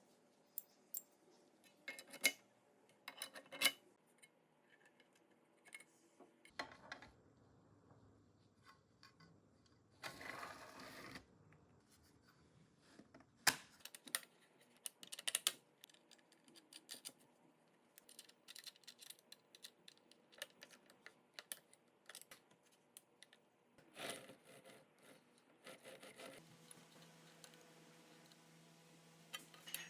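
Light, scattered clicks and taps of tools and small metal parts being handled during workshop assembly, with a brief rasping noise about ten seconds in and a faint steady hum starting near the end.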